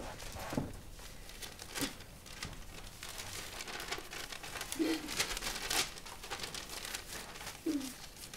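Newspaper rustling as it is opened and folded again: faint crinkling with scattered small clicks, and two brief low hums about five and eight seconds in.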